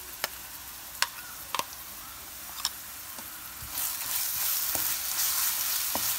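Browned onions frying in oil in a nonstick pan with a light sizzle, broken by a few sharp clicks of a metal spoon as green chili, ginger and garlic paste is scraped in. About four seconds in the sizzle grows louder as the paste is spread and stirred through the hot oil with a wooden spatula.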